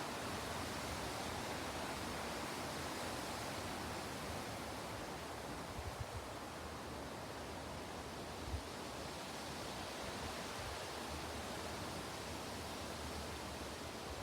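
Steady breeze giving an even rustling hiss, with a few brief low gusts buffeting the microphone about six and eight and a half seconds in.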